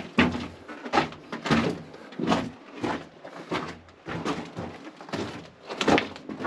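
Footsteps of a person walking along a mine tunnel, one sharp step about every two-thirds of a second.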